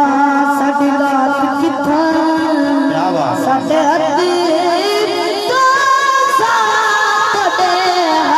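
A boy singing a Punjabi naat unaccompanied into a microphone, holding long ornamented notes that rise in pitch mid-phrase and fall again near the end.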